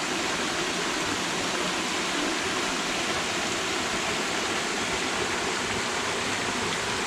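Small waterfalls and rapids on a mountain river, water rushing and splashing in a steady, even roar.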